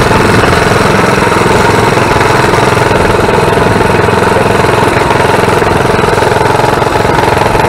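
Coleman mini bike's small single-cylinder engine running steadily as the bike rides along, with a fast, even chugging.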